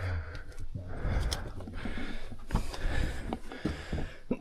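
Scuffing and rustling of a person crawling through a tight mine crawl space, with a few short knocks.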